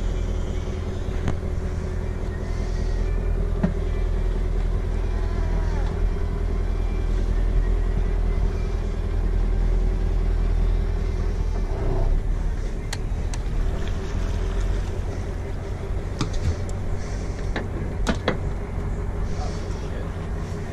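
Boat engine running steadily, a low rumble with a constant hum, with a few short sharp clicks in the second half.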